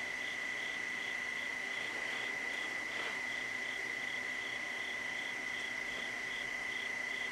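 Insect chorus: one insect keeping up a steady high trill while another chirps in a quicker pulse, about four times a second.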